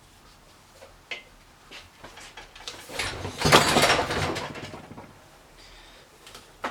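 Clattering and rustling of objects being handled, loudest for about two seconds in the middle, with a few sharp clicks before it and one at the end.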